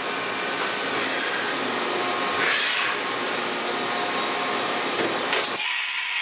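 2001 Kiwa KNH400 horizontal machining center running with a steady rushing hiss. There is a brief louder swell about two and a half seconds in, and a sharp high hiss of air near the end as the shutter inside the machine opens.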